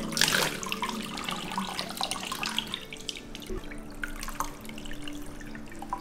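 Water poured from a cup over a small dog standing in a bathtub: splashing and dripping, loudest in a burst of pouring right at the start and then in small irregular splashes.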